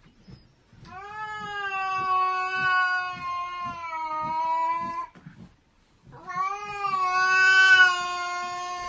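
Domestic cat caterwauling: two long, drawn-out yowls of about four seconds each, the second starting about six seconds in and ending near the end. This is the kind of yowl an angry cat gives.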